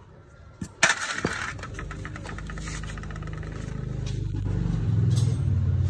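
A machine motor starts with a sharp click and runs with a rapid, even rattle over a low hum, growing louder.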